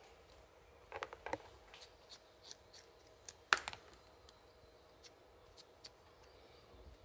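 Faint handling noise from hands working with a towel and a small rubber part: a quick run of soft clicks and rustles about a second in, one sharper click about three and a half seconds in, then scattered light ticks.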